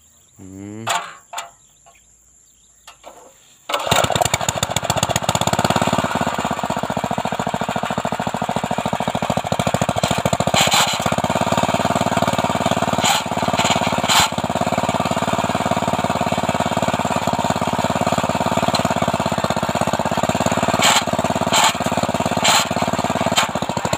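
Small petrol engine of a mini cultivator (walk-behind tiller) being pull-started: a short rising crank about a second in that does not catch, then the engine fires about four seconds in and runs steadily, with an occasional sharp click.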